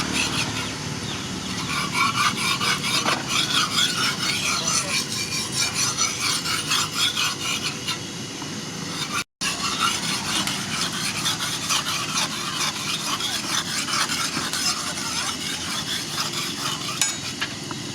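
Rapid back-and-forth rubbing strokes of a hand-worked abrasive on the steel knife, a scraping sound that breaks off for a moment about nine seconds in.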